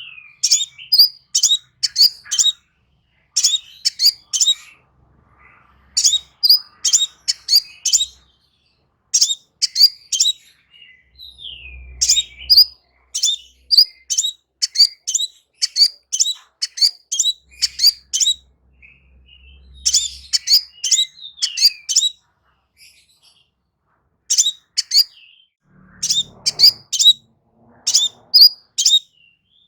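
Crimson sunbird singing: rapid runs of sharp, high chirps, each run a few notes long and broken by short pauses.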